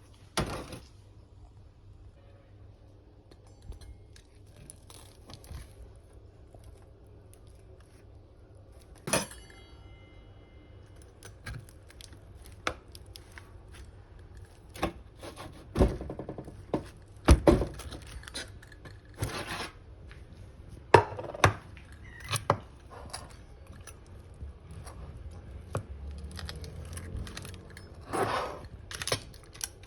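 Kitchen handling sounds: scattered knocks, clinks and rustles of dishes and utensils, with one clink about nine seconds in that rings briefly.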